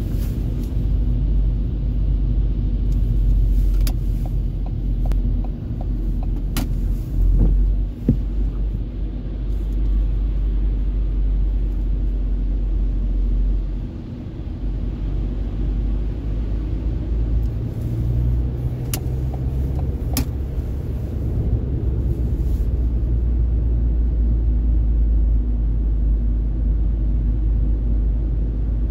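Steady low rumble of a car driving on a wet motorway, heard from inside the cabin: engine and tyre noise. A few brief sharp clicks stand out over it.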